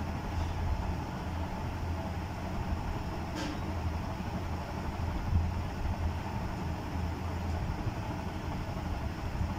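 Steady low background rumble with a constant hum underneath, and a faint short high sound about three and a half seconds in.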